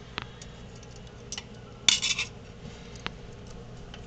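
Light metal clicks and clinks as the worn seals are worked out of a kitchen faucet's valve body, the loudest a short clinking rattle about two seconds in.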